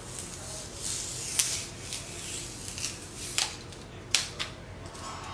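Utility knife blade drawn through a thin white rice-box sheet on a tile floor: a light scraping hiss and several sharp, irregular clicks.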